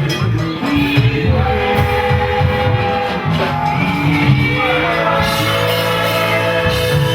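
Church worship music: voices singing held notes over an instrumental accompaniment.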